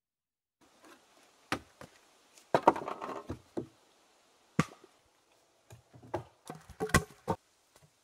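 Irregular wooden knocks and thuds of logs being handled and knocked against each other on a log cabin wall. There is a short scraping clatter about three seconds in, and a quick run of knocks near the end.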